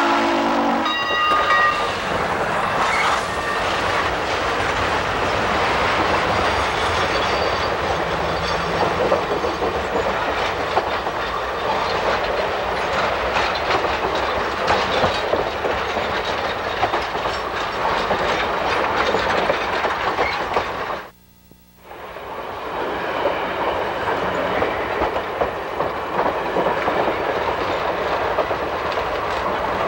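Train passing close by, wheels clattering over rail joints with steady clickety-clack. A pitched warning blast from the train cuts off within the first second, and the sound drops out sharply for about a second around two-thirds of the way through.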